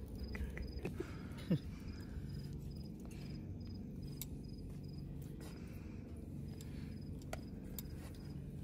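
Cricket chirping faintly: a short high chirp repeated evenly about two or three times a second, over a steady low background rumble, with a few soft clicks.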